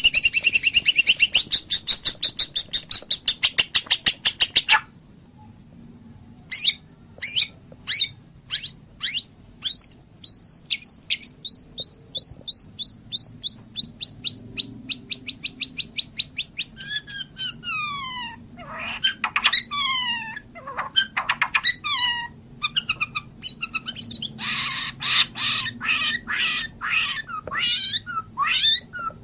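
White-rumped shama (murai batu) singing: a fast rattling trill for the first few seconds, a short pause, then a string of separate whistled notes and down-slurred phrases, and a dense rapid chatter near the end.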